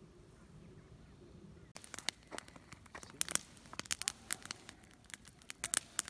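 Campfire crackling: wood burning with irregular sharp pops and snaps, starting suddenly about two seconds in after a quiet stretch.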